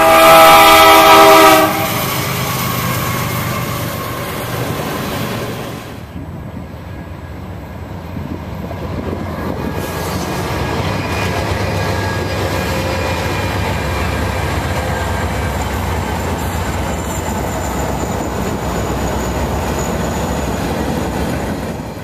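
A diesel locomotive's air horn blows one loud chord for under two seconds. Then comes a steady low rumble as a Norfolk Southern train led by several diesel locomotives rolls past.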